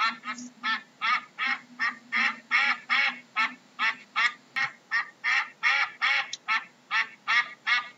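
Duck quacking in a fast, even series of short calls, about three a second.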